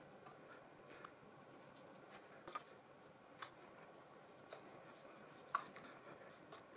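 Faint scratch of a thin paintbrush laying paint onto paper, with about six small clicks, the sharpest a little past the middle.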